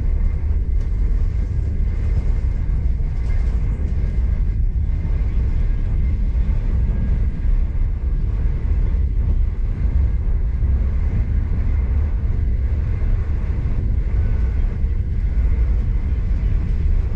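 V/Line regional passenger train running along the line, a steady low rumble of wheels on rail.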